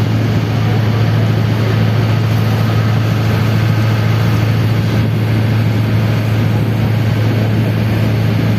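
Boat engine running steadily under way, a constant low drone that does not change.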